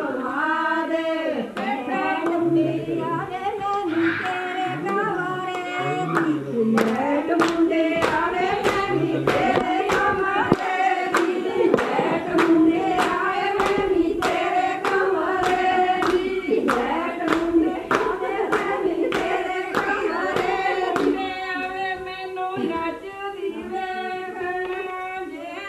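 A group of women singing a folk song together, with rhythmic hand clapping at about two claps a second. The clapping drops away near the end while the singing goes on.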